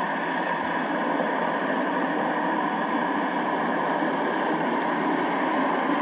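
Steady underwater rushing hum with faint steady tones, heard through a GoPro's waterproof housing: the engine and propeller noise of the Hythe ferry coming in, carried through the water.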